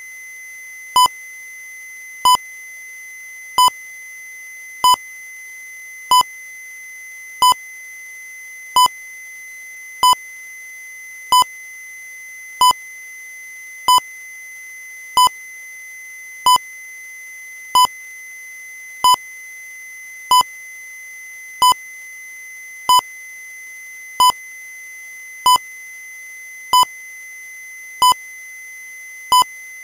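Electronic alert beep sounding in a steady repeating pattern, one short pitched beep about every 1.3 seconds. A faint steady high tone runs underneath.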